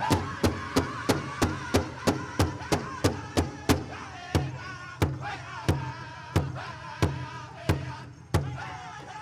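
Powwow big drum struck in unison by a drum group for a prairie chicken dance song, with the singers' high voices over it. The beat is fast and steady at about three strokes a second, then slows to about one and a half strokes a second near the middle.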